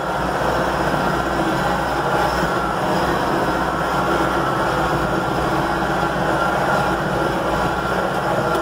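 Tractor engine running steadily, a constant drone with no change in speed.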